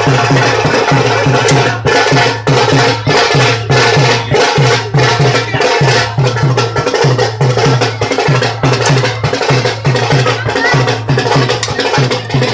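Percussion-driven music for a gatka display: drums beating a fast, steady rhythm, with sharp wooden clacks.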